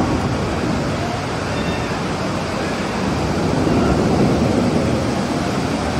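Steady rushing noise with faint, brief voices in it.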